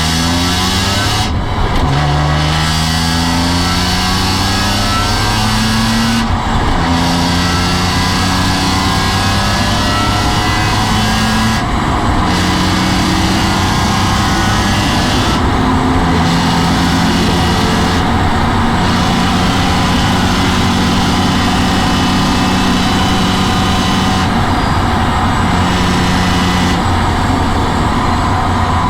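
BMW M3 E46's 3.2-litre straight-six engine running hard at high revs, its pitch climbing and holding, with several brief breaks in the note every few seconds.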